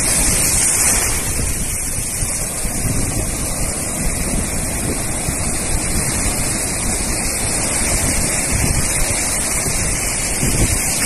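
Sea surf breaking on a beach, a steady rushing wash, with wind buffeting the microphone in irregular low rumbles.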